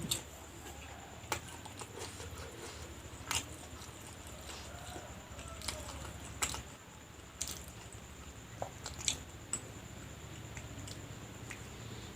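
Close-up crunching bites and chewing of homemade fried lumpia (spring rolls) filled with sausage and egg: a dozen or so sharp, separate crunches over quieter chewing. The wrapper crunches hard, which the eater puts down to over-frying.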